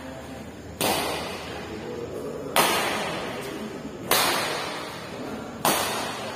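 Badminton rackets striking a shuttlecock four times in a rally, about one and a half seconds apart, each sharp crack ringing on in the echo of a large hall.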